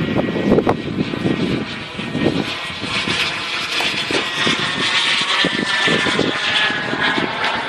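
Turbine of a Falcon 120 RC jet in flight, a steady high whine and rushing hiss that grows louder about three seconds in and eases near the end. Irregular low rumbles of wind buffet the microphone.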